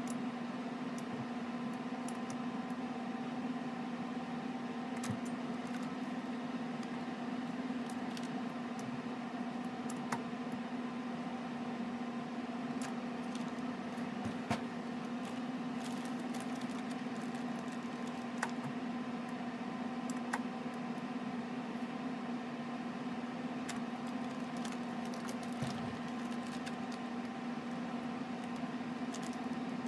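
A steady machine hum with scattered light clicks and plastic crinkles from polypropylene grow bags being handled and pressed in a hand-press impulse sealer.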